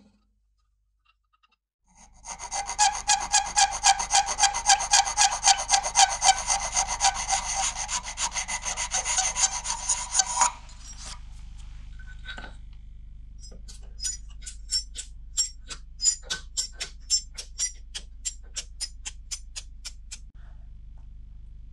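Small flat handle piece rubbed by hand on sandpaper in quick, even back-and-forth strokes for about eight seconds, beginning about two seconds in. A run of light, sharp clicks follows near the end.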